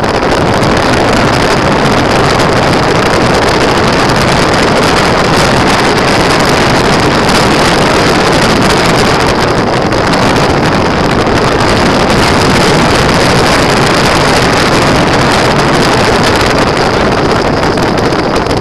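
Steady, loud rushing noise of a dryland dog rig moving along a tarmac road: wind buffeting the microphone mixed with the rig's wheels rolling, with a thin steady high tone beneath.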